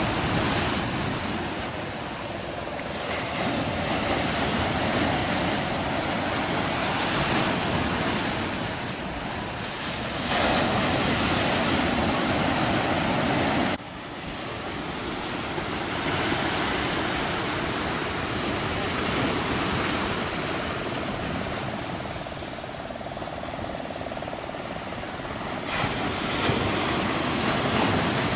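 Sea surf breaking and washing over rocks, a continuous rush of white water that swells and eases with the waves. The level drops suddenly once, about halfway through.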